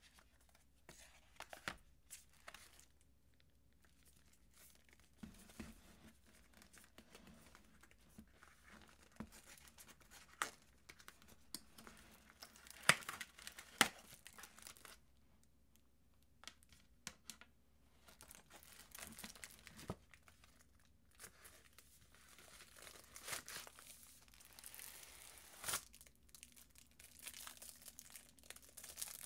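Hands unwrapping accessory packaging: paper and plastic rustling, tearing and crinkling, broken by sharp clicks and taps, the two loudest near the middle. The rustling grows denser near the end as a case in plastic wrap is handled.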